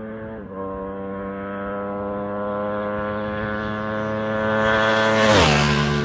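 Ducati 1199 Panigale R's L-twin engine with a Termignoni exhaust, heard as the bike accelerates toward the roadside and passes. The note climbs and grows louder, with one upshift about half a second in, and drops sharply in pitch as the bike goes by a little after five seconds.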